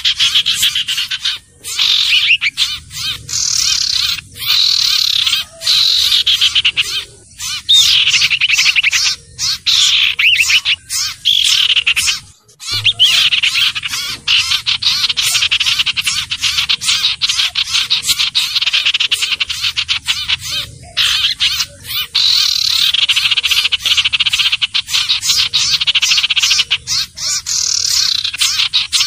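Iora (cipoh/sirtu) calls played as a bird-lure recording: rapid, high-pitched chattering and trilling in sweeping phrases, nearly continuous with a few short breaks.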